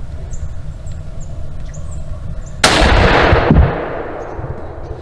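A single gunshot from a hunting gun about two and a half seconds in, its sound dying away over about a second. This is the shot that kills the boy's first deer.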